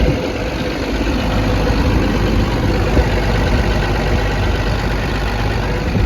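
Cummins diesel engine of an XCMG XE210CU excavator idling steadily, running well, with no blow-by.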